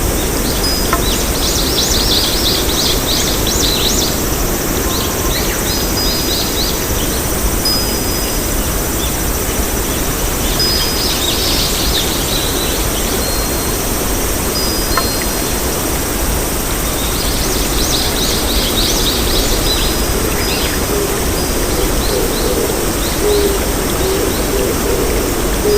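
Birds chirping in three separate flurries over a loud, steady rushing noise.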